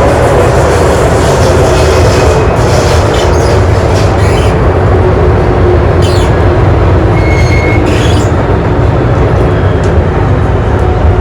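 MTR M-Train metro train running at speed, a loud steady rumble of wheels on rail, with short high wheel squeals and screeches about a third and two thirds of the way through.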